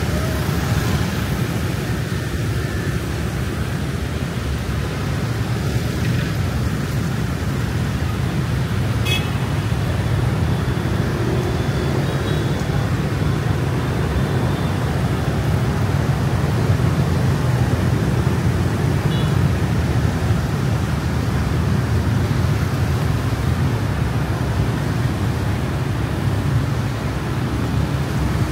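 Steady city street traffic noise, a dense low rumble of passing engines and tyres, with a brief horn beep about nine seconds in.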